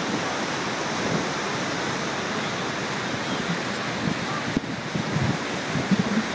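Steady rushing noise with no clear pitch, with a brief dip about two-thirds of the way through and a few faint low blips near the end.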